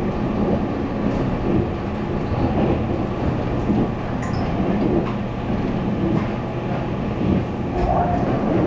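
Taiwan Railways local electric train running along the track, heard from inside the carriage: a steady rumble of wheels and running gear.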